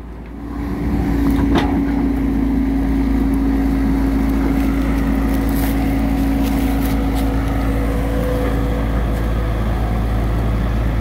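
Tracked excavator's diesel engine running under load with a steady drone, revving up over about the first second. A few sharp knocks and scrapes come from the bucket digging into rocky soil.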